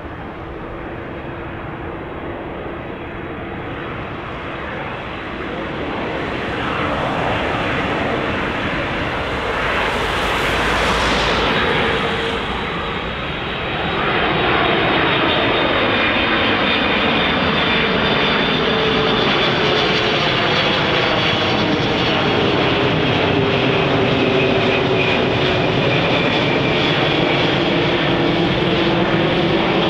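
Airbus A330-300 airliner's twin jet engines on final approach, a loud steady rumble with a whine. The whine's tones slide in pitch as the aircraft passes low overhead, and the sound grows louder about halfway through.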